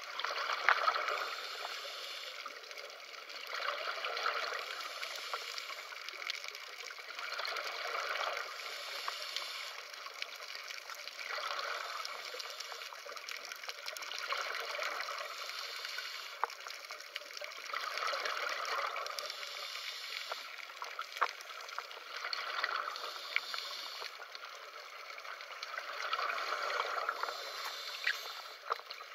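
Scuba diver's regulator breathing heard underwater: bubbling exhalations swelling about every four seconds, with scattered sharp clicks.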